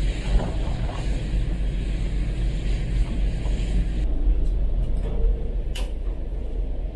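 Steady low rumble of the ferry's engines, with a hiss of wind and wake water over it. About four seconds in the hiss drops away, and a few sharp clicks of a metal door handle and latch follow as the door is opened.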